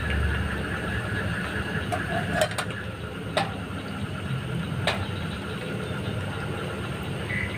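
Portable gas cartridge stove burning under a kettle, a steady hiss mixed with light rain. A few sharp clicks come about two and a half, three and a half and five seconds in.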